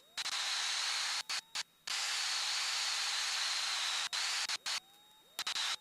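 Static hiss on an aircraft's headset audio, cutting in and out abruptly several times, with the longest stretch of about two seconds in the middle. A few sharp clicks mark the switching. It sounds like the intercom or radio squelch opening and closing on noise.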